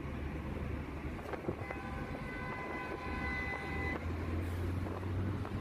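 Steady road and engine rumble heard from inside a moving car. A vehicle horn sounds one steady, unbroken tone for about two seconds in the middle.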